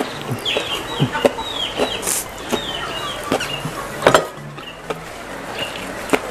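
Instant fried noodles slurped and chewed close to the microphone, with wet smacking clicks, the loudest about four seconds in. Hens clucking in the background, a run of short falling calls.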